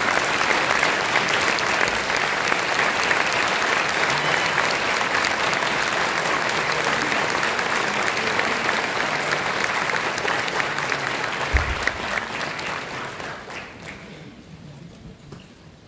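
Audience applauding, dense clapping that thins out and dies away over the last few seconds, with one brief low thump shortly before it fades.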